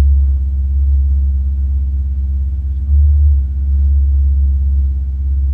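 Ferrari 488 GTB's twin-turbo V8 heard from inside the cabin, a steady low drone while driving, briefly louder about three seconds in.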